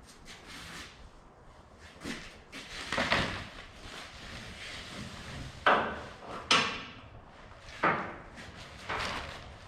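A handful of separate knocks and clunks, a second or two apart, from work on a strapped-down load on a flatbed trailer, the loudest a little past the middle.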